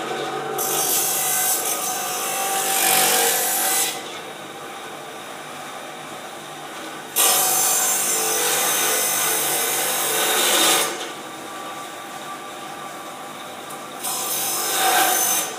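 Electric chicken cutting machine's motor-driven circular blade spinning with a steady hum. Three times it breaks into a loud rasping saw noise as chicken is pushed through, cutting meat and bone. The first two cuts last a few seconds each, and a shorter one comes near the end.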